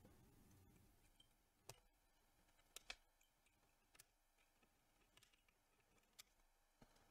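Flush cutters snipping the bent-over legs of through-hole resistors on a circuit board: a few faint, sharp clicks, two close together a little under three seconds in, the rest near silence.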